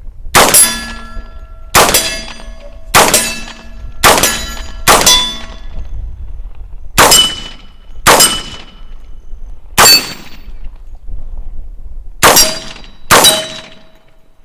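About ten shots from a 10mm Auto direct-blowback AR-15 pistol-caliber carbine, fired at an uneven pace of about one a second with a couple of longer pauses. Most shots are followed by the short ring of a steel target plate being hit.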